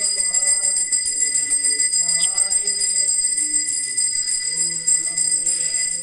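Temple bells ringing continuously in an even, jingling ring, with faint voices underneath.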